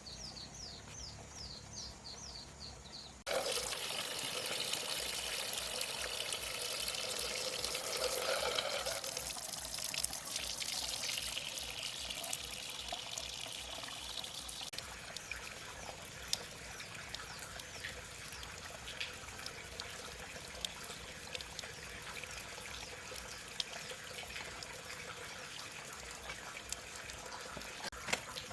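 Water pouring and trickling from a bamboo pipe, starting suddenly about three seconds in and running on steadily. Faint bird chirps are heard before the water starts.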